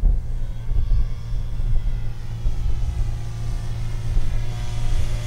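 Electric motor and propeller of a foam RC Corsair model whining in flight, growing louder near the end as it comes closer, over a strong, unsteady low rumble.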